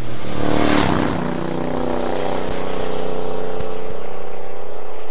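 Engine-like mechanical drone with a swoosh in the first second, then holding steady.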